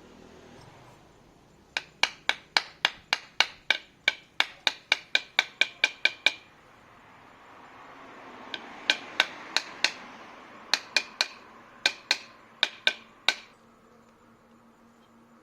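A hammer striking metal in quick runs of sharp, ringing blows, about three a second, with short pauses between the runs.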